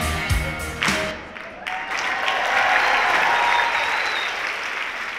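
Backing music ends on a final hit about a second in, then a large audience applauds, swelling and then slowly dying down.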